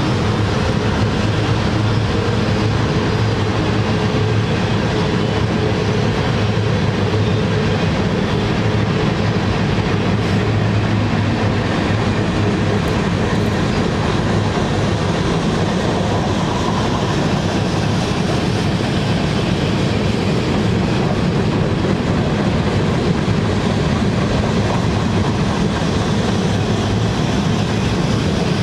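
Freight cars of a long mixed freight train rolling steadily past, wheels running on the rails with a continuous rumble.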